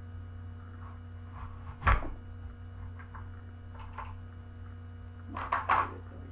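Steady electrical hum, with one sharp knock about two seconds in as an apple corer is pushed down through an apple onto the cutting board, then a few light clicks and a short clatter near the end as the apple slices are pulled apart.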